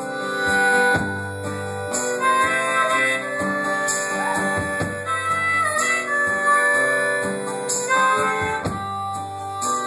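Harmonica solo with held, bending notes, played over strummed acoustic guitar chords and low keyboard bass notes.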